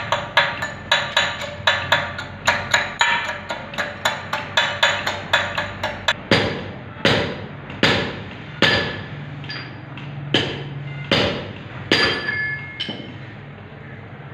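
A steel rod striking a welded steel fabrication: rapid ringing metallic taps, about four to five a second. About six seconds in they slow to single, heavier strikes nearly a second apart.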